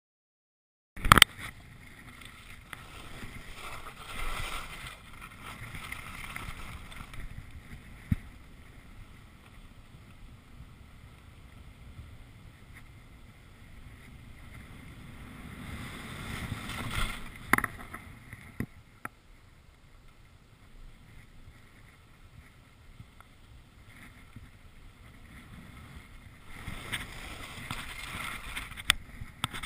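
Skis hissing and scraping over packed snow during a downhill run, swelling with each turn, with a few sharp knocks, the first about a second in.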